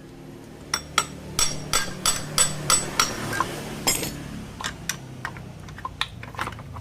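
Sharp metallic tapping and clinking of hand tools and engine parts during an engine teardown: a quick run of about ten knocks, then a few scattered ones.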